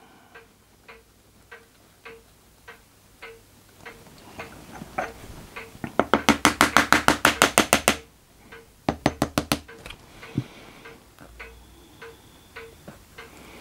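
Sharp rapid tapping on the lever pattern bedded in moulding sand, a run of about eight taps a second lasting two seconds, then a shorter run about a second later: the pattern being rapped to loosen it so it can be drawn from the mould.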